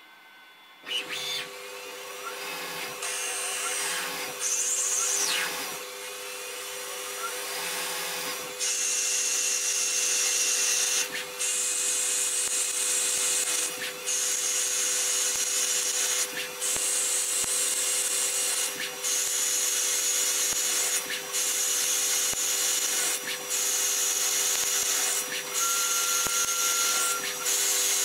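Tormach CNC lathe running a cut: the spindle hums with two steady tones, and from about eight seconds in coolant sprays hard against the enclosure window with a loud hiss. The hiss breaks off briefly every two to three seconds.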